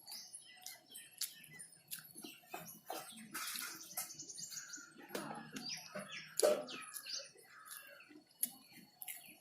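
Small birds chirping and twittering, with a quick trill about three and a half seconds in, over scattered sharp clicks and knocks.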